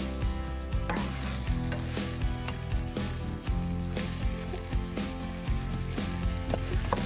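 Oil sizzling steadily in a nonstick frying pan as a flour-tortilla quesadilla fries. A wooden spatula presses and shifts it, with a few sharp clicks.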